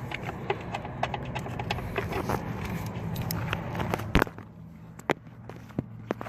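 Hand tools and metal engine parts clicking and tapping irregularly while intake manifold nuts and bolts are being refitted, with one louder clack about four seconds in. A low steady hum underneath stops at that moment.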